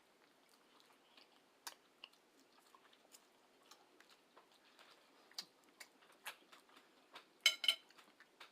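Faint chewing and wet mouth clicks from someone eating spaghetti, with scattered soft clicks and a louder quick cluster of them about seven and a half seconds in.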